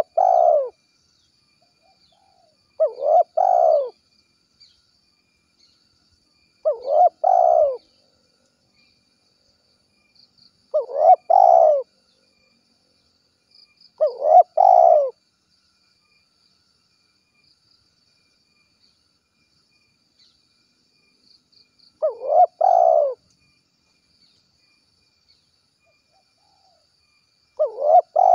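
Spotted dove cooing: short phrases of a few coos, each about a second long, repeated every three to four seconds, with a longer pause of several seconds in the middle.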